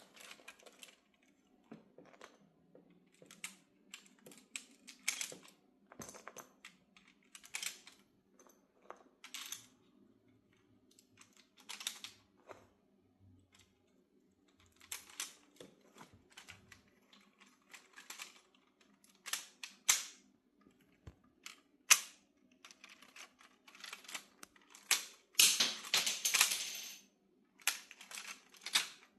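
Plastic LEGO parts clicking and clacking as a brick-built lever-action shotgun's mechanism is worked, in irregular bursts of sharp clicks that get louder and more rapid near the end.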